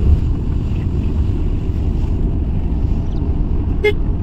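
Steady low rumble of a car driving along a paved road, heard from inside the cabin. A brief high-pitched note cuts in near the end.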